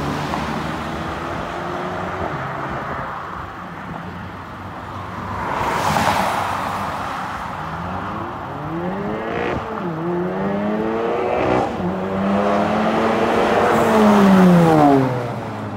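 Modified cars accelerating hard along the road, the engine note climbing through the gears with short drops at each gear change about ten and twelve seconds in. The loudest comes near the end, as a car accelerates towards the microphone and its pitch falls as it passes.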